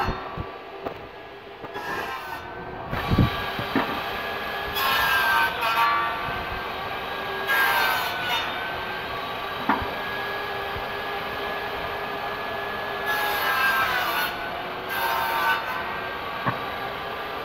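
Bosch GTS 10 J table saw running with a steady whine, its blade cutting through wood several times, each cut a burst of hiss lasting a second or two, with the motor's pitch dipping briefly under the load. A dust extractor runs alongside it, and there are a few sharp knocks of wood being handled.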